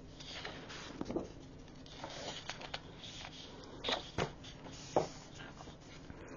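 Sheets of 12x12 scrapbook paper being slid over one another and shifted on a cutting mat by hand: faint rustling with a few short, crisper swishes.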